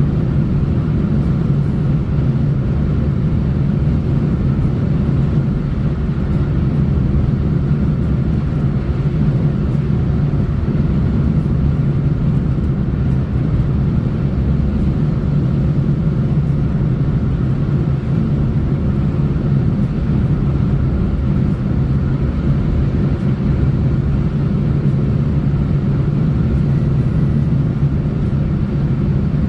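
Steady road noise of a car driving: an even, low rumble of tyres on the road surface that does not change.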